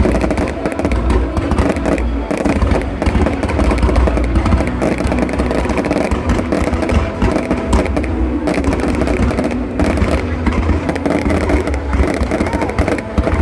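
New Year's fireworks display going off continuously in rapid, overlapping bangs, deep booms and crackles, with music playing underneath.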